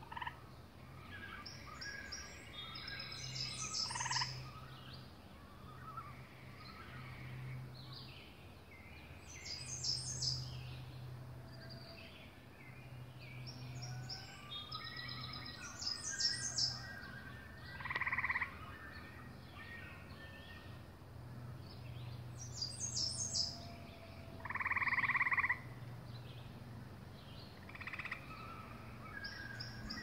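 Woodland birds singing: one high song of quick notes repeats about every six or seven seconds, with other calls between. There are two louder calls, near the middle and about three-quarters through, over a steady low hum.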